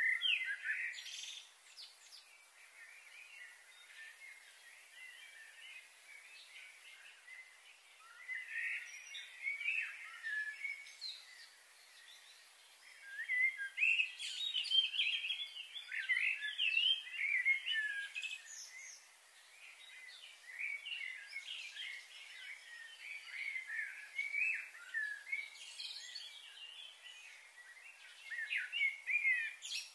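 Small birds chirping and twittering in quick, overlapping calls over a faint steady outdoor hiss, busiest in the middle stretch.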